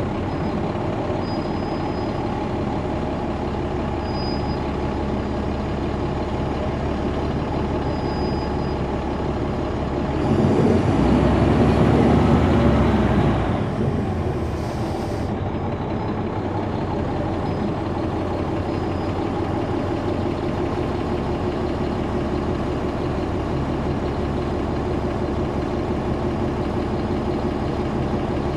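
Caterpillar C13 ACERT diesel engine of a NABI 40-foot transit bus running steadily with its engine cooling fans on. It gets louder for about three seconds starting some ten seconds in, with a faint rising whistle, and there is a short sharp hiss of air a little later.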